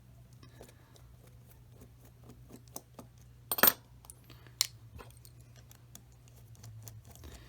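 Small clicks and taps of a screwdriver and tiny metal and plastic parts being handled while a model locomotive is taken apart, with a louder clack about three and a half seconds in and a sharp tick a second later.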